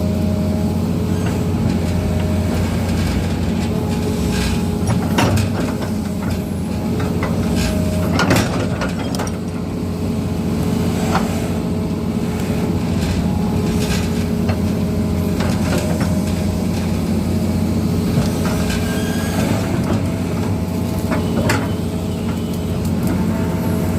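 Hitachi Zaxis hydraulic excavator's diesel engine running steadily under load while it scrapes an embankment, with a steady whine over the drone and several short sharp knocks, the loudest about eight seconds in.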